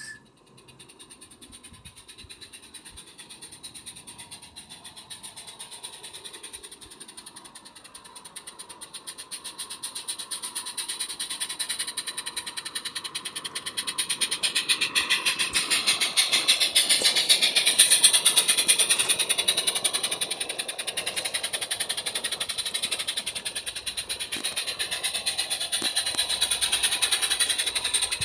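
Small live-steam garden-railway locomotive running, its exhaust a rapid, even chuffing with steam hiss. It grows louder over the first half as the engine approaches, then holds steady.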